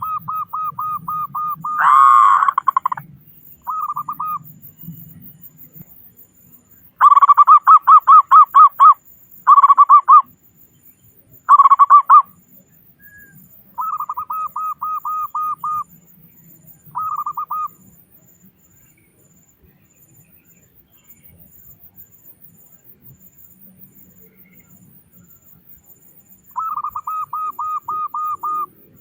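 Zebra dove (perkutut) cooing: bouts of quick, evenly repeated coo notes, about four or five a second, separated by short pauses. The loudest bouts come about two seconds in and from about seven to twelve seconds, followed by a long lull before a final bout near the end.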